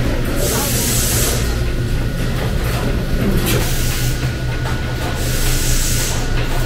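Steady low hum and hiss of meat-packing line machinery, with a faint steady whine above it. Two short bursts of brighter hiss or rustle, about a second in and near the end.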